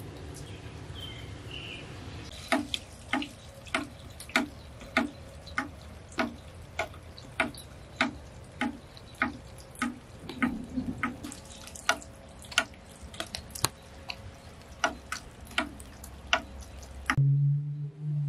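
Water dripping at a steady rhythm, one drop landing with a small plunk about every 0.6 seconds, over a low steady background. Near the end the background cuts abruptly to a louder low hum.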